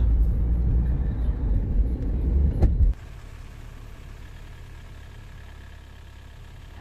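Road and engine rumble of a car driving on a winding highway, heard from inside the cabin, with a single sharp click just before it cuts off suddenly about three seconds in. Only a faint, steady low background noise follows.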